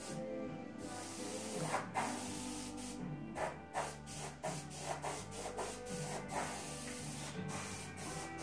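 Airbrush spraying paint, a steady hiss of air that cuts out briefly as the trigger is released, with background music playing.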